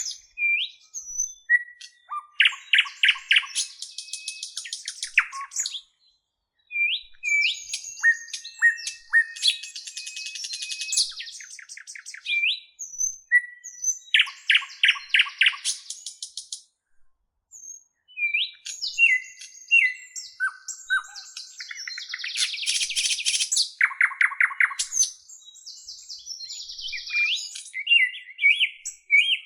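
Bird song: a varied run of chirps, short whistled notes, quick rattles and harsh buzzy notes, sung in phrases a few seconds long with short pauses between them.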